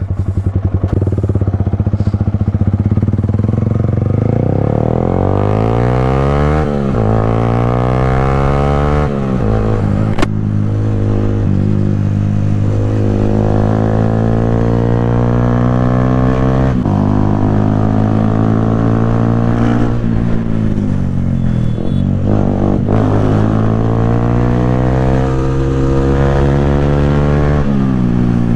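Yamaha R15's single-cylinder engine through a loud aftermarket Akrapovic exhaust, pulling away and accelerating. The pitch climbs and drops sharply twice as it shifts up through the gears, then holds steady while cruising, with a sharp click about ten seconds in.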